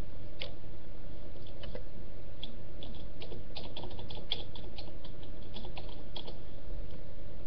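Typing on a computer keyboard: irregular clicks, thickest through the middle, over a steady hiss and faint hum.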